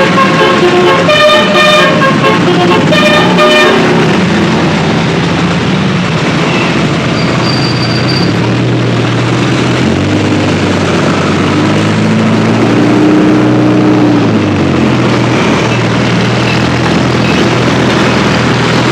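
Bus telolet horn (Basuri multi-tone horn) playing a melody of short stepped notes for about the first four seconds, then a vehicle engine running with its pitch rising and falling.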